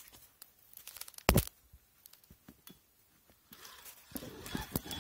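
Handling noise from a camera being moved about: scattered small clicks, a single loud knock about a second in, then rustling and crackling from about three and a half seconds on.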